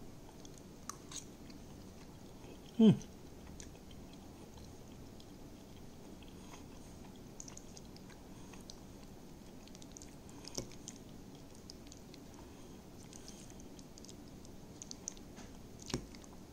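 A person chewing a mouthful of boiled paper and pasta in cheese sauce, with faint scattered clicks. About three seconds in there is one short, loud sound that falls in pitch.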